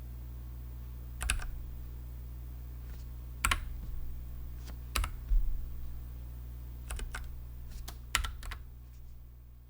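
Nuphy Air60 low-profile mechanical keyboard with Gateron red linear switches, a few single keys pressed at uneven intervals, sharp clacks over a steady low hum. The sound fades out near the end.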